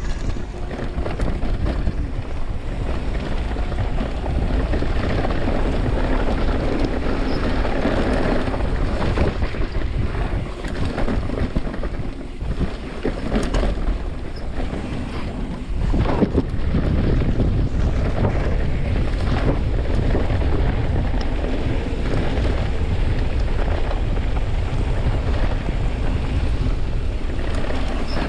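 Wind buffeting the microphone and knobby tyres rolling over a dirt trail as a Santa Cruz Nomad mountain bike descends, with irregular rattles and knocks from the bike over rough ground.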